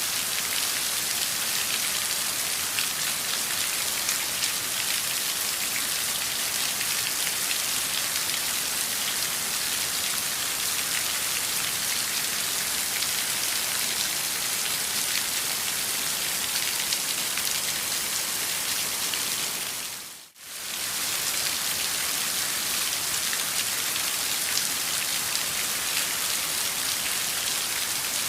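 Steady heavy rain downpour, a dense even hiss of drops with fine patters throughout. About twenty seconds in it briefly fades almost to nothing and swells straight back.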